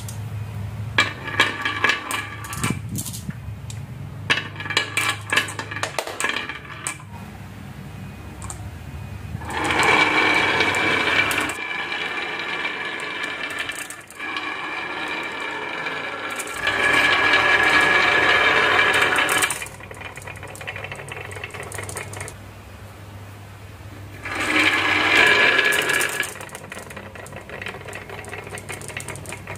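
Marbles and small toy vehicles rolling and clattering down a wooden marble run and ramp track. Scattered clicks come first, then three longer rattling runs of two to three seconds each, about ten seconds in, again around seventeen seconds, and near the end.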